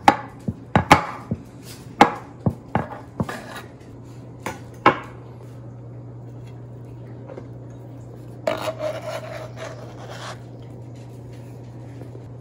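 Kitchen knife cutting through tiramisu and knocking against the bottom and sides of a glass baking dish: a run of sharp clicks and taps through the first five seconds. About eight and a half seconds in comes a short scraping clatter of a utensil on dishware, over a steady low hum.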